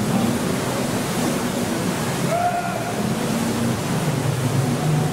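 Steady rush of water and wind on board a canal tour boat, with the low, even hum of the boat's engine underneath.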